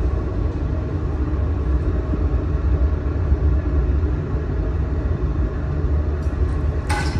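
Glass furnace burner and blowers running with a steady low rumble, with a short knock near the end.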